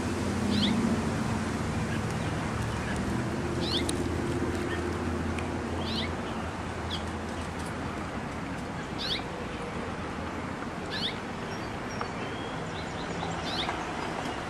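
American robin giving short, sharp, high call notes, one about every two seconds, over steady background noise.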